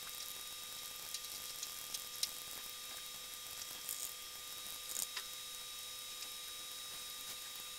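Faint scattered clicks over a steady background hiss, with faint steady electrical whine tones.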